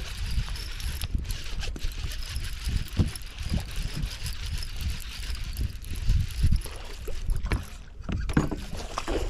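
Wind rumbling on the microphone and water slapping against a small boat, with faint ticks and whir from a baitcasting reel being cranked to retrieve line.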